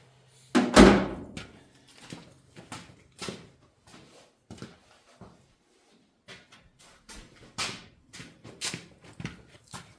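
A loud knock about half a second in, then scattered light clicks and taps of objects being handled.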